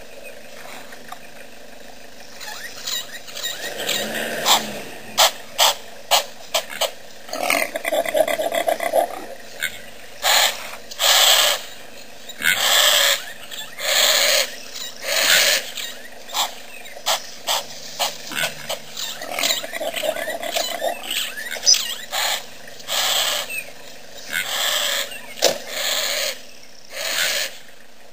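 An African elephant close to the microphone, making irregular short bursts of blowing and scraping noise with sharp knocks among them.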